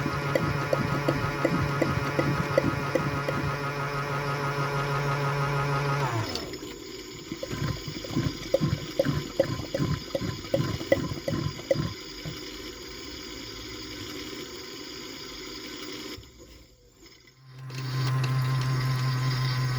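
AEG/Electrolux Lavamat 84950 washing machine finishing an interim spin: a steady hum with regular ticking cuts off about six seconds in, the drum runs down with a string of separate thumps, and after a brief near-quiet pause a steady hum starts again near the end as the rinse stage begins.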